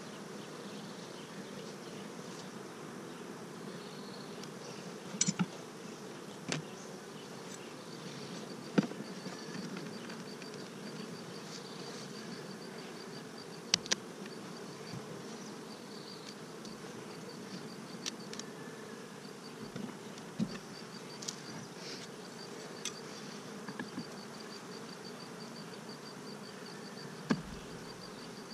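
Honey bees buzzing steadily from an open hive, with occasional sharp clicks and knocks of wooden hive boxes and frames being handled.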